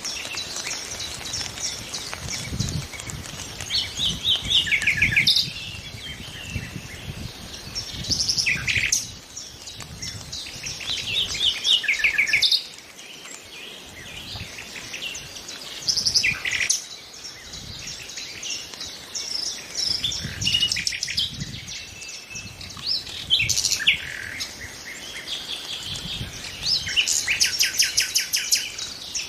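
Nightingale singing: short phrases of rapid repeated notes and trills, broken by brief pauses.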